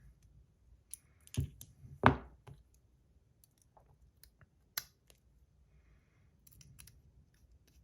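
Scattered sharp clicks and taps from handling a titanium fidget spinner and its buttons, with two louder knocks about one and a half and two seconds in.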